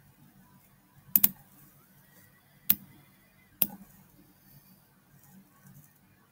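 Computer mouse clicks: a quick double click about a second in, then two single clicks a second or so apart, over faint low background hum.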